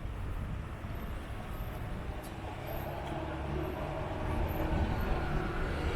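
A motor vehicle's engine running close by: a steady low rumble, with its engine tone growing a little stronger about halfway through.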